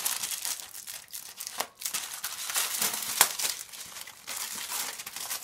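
Clear plastic wrapping crinkling and crackling in the hands as a water-purifier filter cartridge is handled, with irregular sharp crackles throughout.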